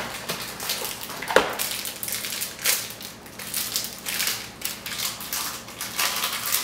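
Plastic fruit snack pouch being handled and opened, crinkling and crackling irregularly, with one sharp knock about a second and a half in.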